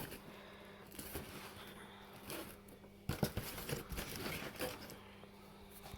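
Cardboard box and packaging being handled: scattered rustling and crinkling, with a few sharper knocks about three seconds in.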